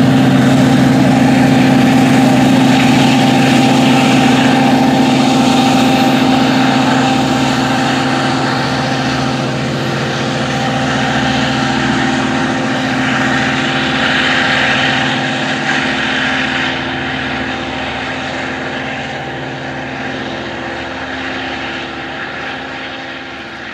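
Diesel engine of an LIRR DM30AC locomotive running under load as the train pulls away, a steady drone that gradually fades.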